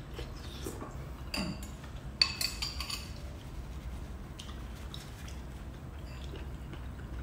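A metal spoon clinking against a ceramic soup bowl: one sharp, ringing clink about two seconds in, with quieter spoon scrapes and sips of soup. A low steady hum runs underneath.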